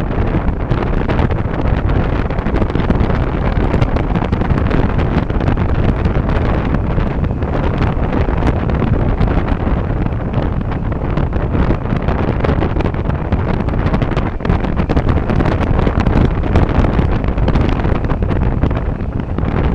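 Steady, loud wind buffeting on the microphone of a motorcycle-mounted camera at about 55 km/h, with the motorcycle's running and road noise underneath.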